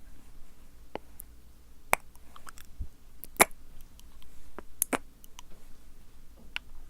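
Close-miked wet mouth sounds for ASMR: sticky tongue and lip clicks, several sharp separate pops spaced irregularly, the loudest about three and a half seconds in.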